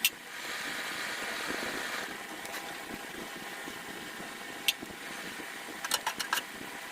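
Coal forge fire burning under forced air from an electric blower: a steady rushing hiss, louder for the first couple of seconds, with a few sharp clicks, a quick cluster of them near the end.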